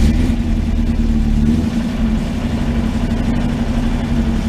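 Rover SD1's 3.5-litre V8 engine catching right at the start and then running steadily. This is the first start after an oil change and a new oil pressure sender.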